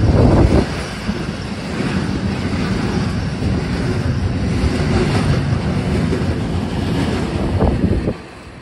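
Intermodal freight train of lorry trailers on low wagons passing close at speed: a steady, loud rumble and clatter of wagon wheels on the rails. About 8 seconds in, it drops abruptly to a much fainter rumble.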